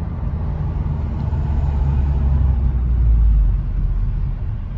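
A car running, a steady deep rumble of engine and road noise that swells a little midway.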